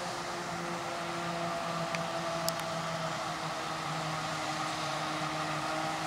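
Claas Jaguar 940 self-propelled forage harvester chopping maize and blowing it into a trailer, with a Massey Ferguson tractor running alongside: a steady machinery drone carrying several steady hum tones, and two faint ticks a little after two seconds in.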